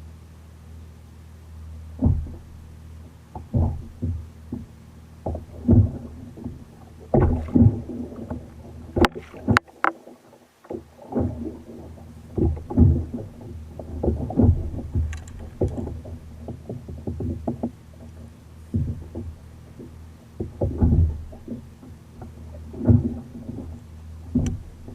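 Kayak on the sea: irregular sloshes and knocks of water and gear against the hull, one or two a second, with a few sharper clicks near the middle, over a steady low hum.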